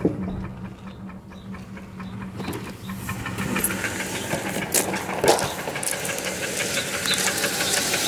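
Chevy 350 V8 idling with a steady hum. From about two and a half seconds in, rustling and a couple of sharp clicks join it as the car door opens and feet step out onto gravel, growing louder near the end.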